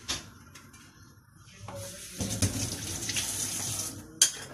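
Water running from a tap for about two seconds, then a sharp clank near the end.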